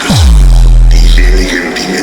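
Loud techno: one long bass kick that drops in pitch and holds a deep low tone for about a second and a half, under hissy high synth textures.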